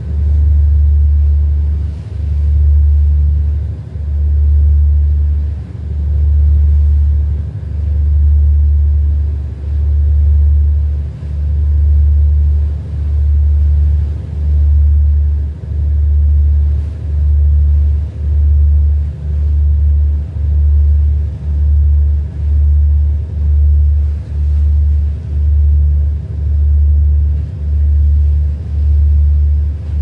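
A boat's engine running, heard from on board as a loud low rumble that throbs about once a second, with a faint steady hum over it.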